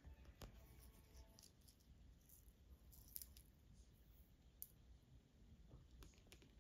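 Near silence, broken by a few faint, scattered clicks from a red-eared slider biting at leafy greens and shifting on pebbles in a plastic tub.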